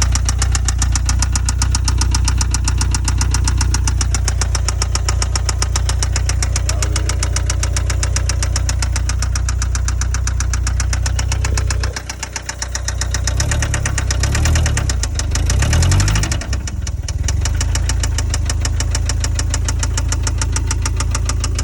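1991 Toyota MR2 Turbo's 3S-GTE turbo four-cylinder engine running with a rapid, steady tapping, which the owner says sounds like a motor tap but is not: he blames something that came loose in the clutch. About two-thirds of the way through the engine is briefly revved, then settles back to idle with the tapping still there.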